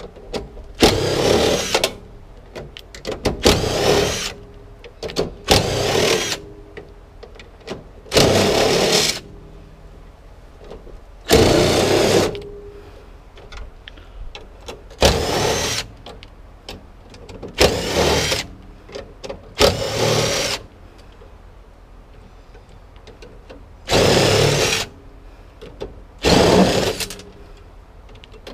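A handheld power tool run in short trigger bursts of under a second, about every two to three seconds, as metal scrap is taken apart.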